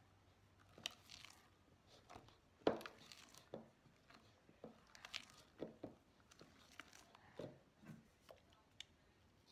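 Faint, irregular squelches of a spatula stirring a thick, foamy mixture of white glue, shaving cream and contact solution in a plastic bowl, the stage where the slime begins to form.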